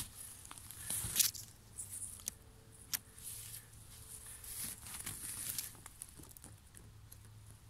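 Rustling and crackling in grass, moss and dry leaf litter as someone moves through it, with a few sharp snaps of twigs. The loudest snap comes about a second in.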